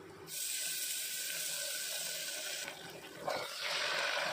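Ginger-garlic paste sizzling as it hits hot oil and fried onions in an aluminium pressure cooker. It is a steady hiss that starts just after the paste drops in, dips briefly about three seconds in, then comes back.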